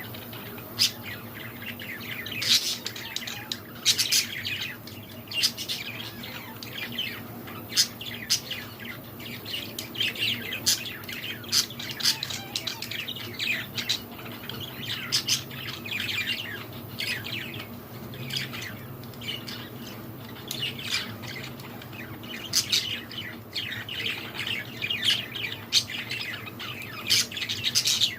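A group of zebra finches calling: many short chirps and squawks in quick, overlapping succession.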